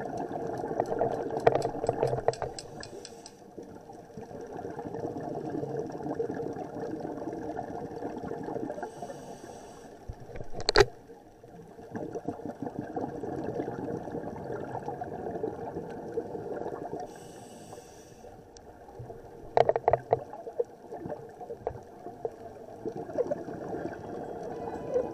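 Muffled underwater noise through a camera's waterproof housing: a steady low hum with scattered sharp clicks, one loud click about eleven seconds in and a quick cluster near twenty seconds.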